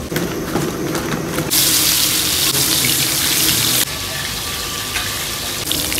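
Hilsa fish pieces frying in hot oil in a large wok, a loud sizzle that starts abruptly about a second and a half in and drops off sharply near four seconds, then swells again near the end. Light clicks and handling noise come before it.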